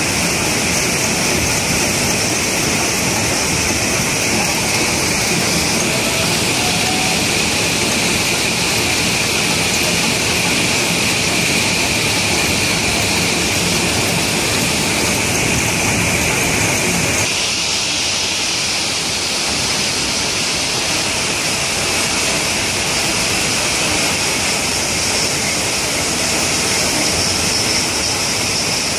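Stone block-cutting machine running steadily on a large stone block, a continuous loud hissing grind with water spraying over the cut. The tone shifts slightly about two-thirds of the way through.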